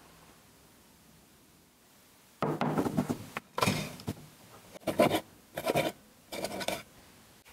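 Plastic screw lid of a glass canister being handled and twisted open: a run of about five short scraping, rubbing bursts, starting a couple of seconds in, with the first the longest.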